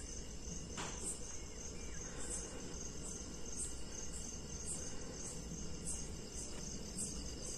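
Crickets chirping steadily in the background, a continuous high pulsing trill, over a low steady hum; a faint click a little under a second in.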